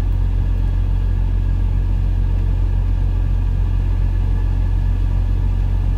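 Steady low engine rumble inside a semi-truck's cab, running unchanged with a faint steady hum above it.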